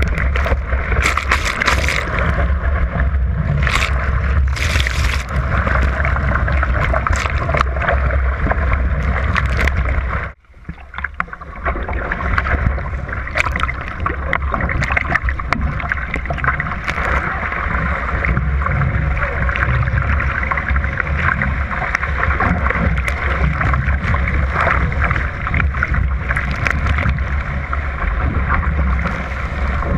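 Water rushing and splashing along a surfski's hull as it surfs waves, with wind buffeting the bow-mounted camera's microphone. The sound drops away suddenly and briefly about ten seconds in.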